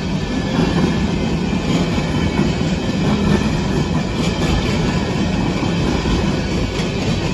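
Empty coal hopper cars of a freight train rolling past over the rails: a steady, loud rolling noise of steel wheels on track.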